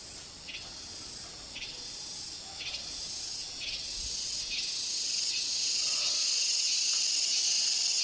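Insects chirring in dense tropical vegetation: a steady high-pitched chorus with a faint pulse about once a second, slowly getting louder.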